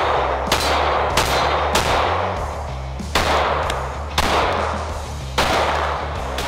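A Glock 17 Gen 5 9mm pistol fired about six times at an uneven pace, each shot sharp and followed by a long echoing tail. Background music with a stepping bass line plays underneath.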